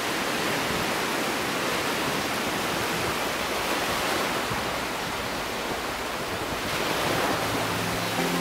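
Ocean surf washing on a shore, a steady rush of waves. Music with held notes begins to come in near the end.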